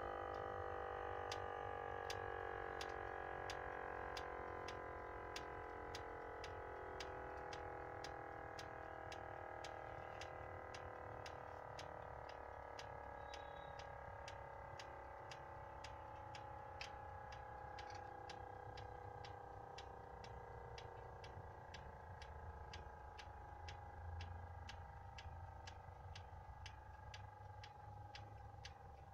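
Bhagyashree LC30 centrifugal oil cleaner's rotor coasting down after the diesel generator has stopped: a faint whine that slowly falls in pitch and fades, with a light tick about twice a second. The long coast-down indicates the rotor had been spinning at full speed, around 7000–8000 rpm.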